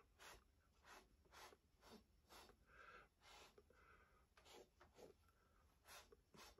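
Very faint, soft scrapes about every half second: a thin stick being drawn through wet acrylic paint on a canvas.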